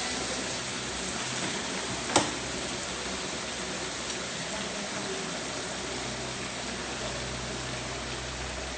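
Steady hiss from a pot of stir-fried flying fish cooking on the stove after cold water has been added, with a single sharp knock about two seconds in.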